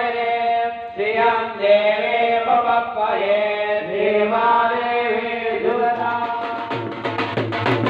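Vedic mantras chanted by a priest's voice over a microphone, in long held, sung tones. About six seconds in, steady drumming cuts in.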